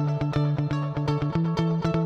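Background music of quick, evenly spaced plucked notes over a held low note that steps up in pitch a little over a second in.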